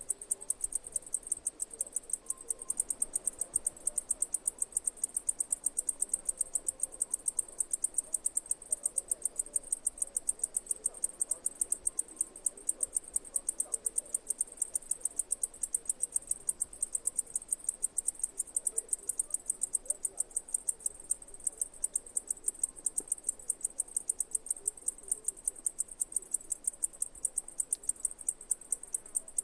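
Insect chirping in a steady, rapid train of high-pitched pulses, about five or six a second, without a break.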